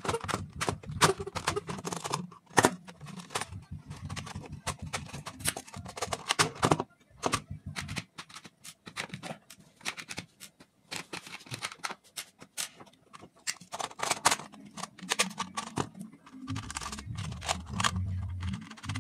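Quick irregular clicks and knocks of plastic switch and socket modules being handled and fitted into a plastic switch-board plate. Low background music comes in near the end.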